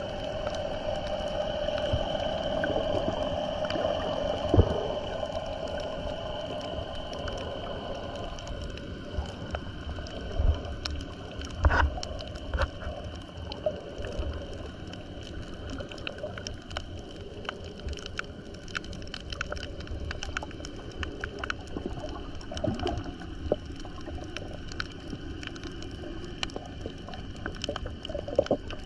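Muffled underwater sound picked up by a submerged camera over a coral reef: a steady hum with many scattered clicks and crackles.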